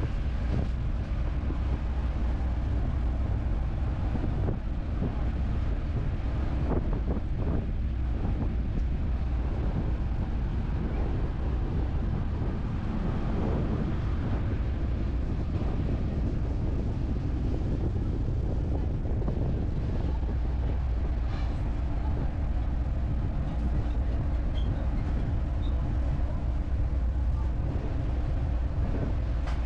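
Passenger ferry's engine drone, a steady low hum under a wash of water and air noise, with wind buffeting the microphone.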